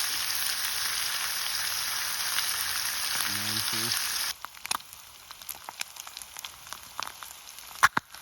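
Eggs and other breakfast food frying in a full pan, a steady loud sizzle that cuts off about four seconds in. A quieter stretch with scattered sharp clicks follows.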